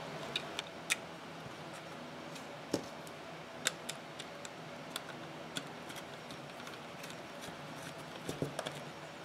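Irregular small clicks and ticks from plastic parts being handled and a screwdriver turning a screw into a 3D-printed plastic Raspberry Pi case, over a low steady hum. The sharpest clicks come about one, three and four seconds in.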